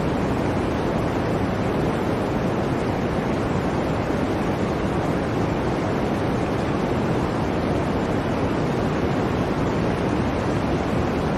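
Blizzard wind blowing steadily: an even rushing noise with no breaks.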